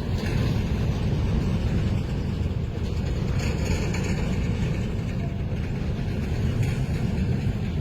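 Container freight train hauled by a pair of EMD G22 diesel locomotives up a steep grade: a steady low rumble with no break.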